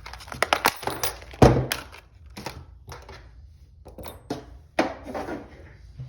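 Hands handling a padlock and tools: an irregular string of sharp clicks and knocks, the loudest a single thunk about a second and a half in.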